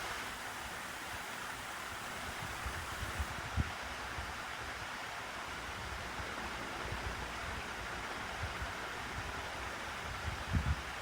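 Room fan running with a steady airy whoosh, broken by a few brief low thumps.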